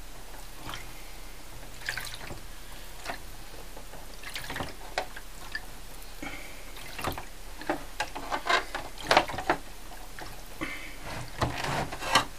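Lith developer sloshing and dripping in a plastic darkroom developing tray as the print is agitated: irregular small splashes and drips that come thicker in the second half.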